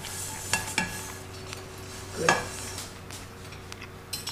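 A few light clinks and scrapes of cutlery on a plate, over a steady low hum.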